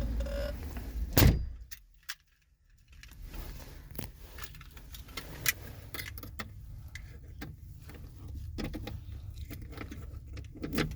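Keys jangling and scattered clicks and knocks from handling in the skid steer before it is started, with one loud thump about a second in. The sound drops out briefly about two seconds in.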